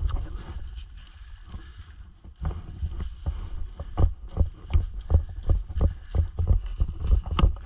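Running footsteps through dry fallen leaves, about three steps a second, each step a low thump with a crunch and rustle of leaves.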